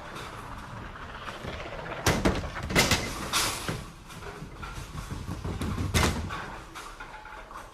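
Bowling ball rolling down the lane with a low rumble, then crashing into the pins about two seconds in, the pins clattering for about two seconds; another crash of pins comes near six seconds.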